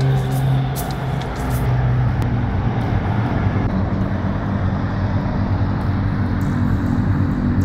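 Road traffic passing on a multi-lane road: cars, a van and a lorry going by, a steady rumble of engines and tyres.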